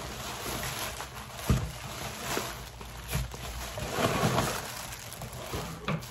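Plastic packing wrap rustling and crinkling as it is pulled out of a cardboard box by hand, with a few sharper crackles.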